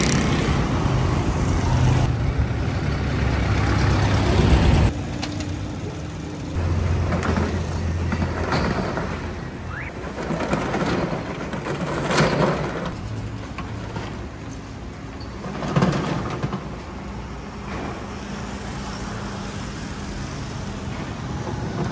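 Street traffic, with cars and motorcycles passing close by. The engine noise is loudest in the first five seconds, with more vehicles swelling past about twelve and sixteen seconds in.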